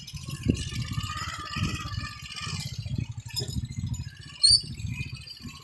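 Small motorcycle engine running at low speed along a rough, rutted dirt trail. A short, sharp high squeak comes about four and a half seconds in.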